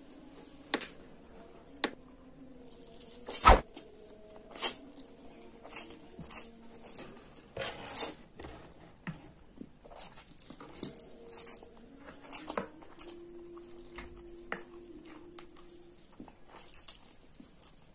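A person eating instant fried noodles close to the microphone: slurping noodles, wet chewing and lip smacks. Short sharp clicks and smacks come every second or so, the loudest about three and a half seconds in.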